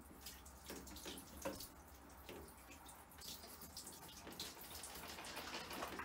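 Faint water dripping and trickling from a freshly rinsed tumble dryer condenser unit into a bathtub as it is lifted out.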